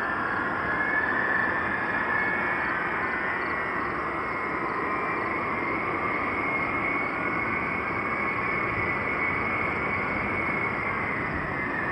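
Several B-52H bombers' TF33 turbofan engines whining while taxiing: a steady rushing hiss with several high whine tones that climb slowly in the first two seconds, hold, and sink in pitch near the end.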